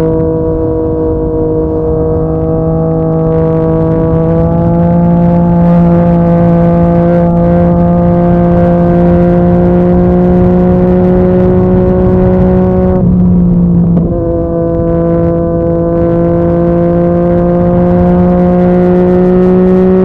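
Yamaha MT-09's three-cylinder engine running through a Yoshimura R55 slip-on exhaust, its note rising slowly as the bike pulls. About thirteen seconds in the note dips briefly, then it climbs again.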